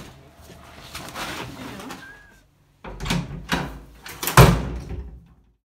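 A door being thrown open, with several sudden loud bangs and knocks; the loudest comes about four and a half seconds in.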